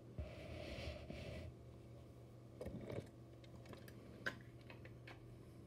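Faint handling noises from a toy diecast truck being picked up and moved: a soft rustle at first, then a few light clicks and taps.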